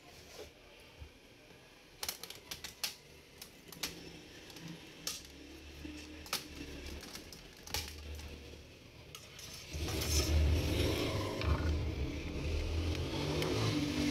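Scattered small clicks and taps of plastic and metal as the keyboard trim of a Dell Latitude E6440 laptop is pried off and a screwdriver is worked at the keyboard screws. From about ten seconds in, a louder steady rumble comes in underneath.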